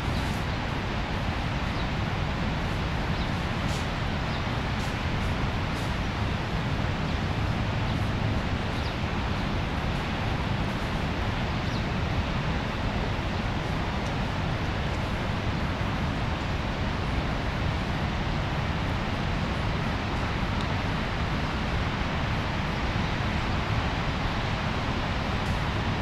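The Rhine Falls waterfall: a steady, unbroken rush of heavy falling water, full and deep, holding an even level throughout.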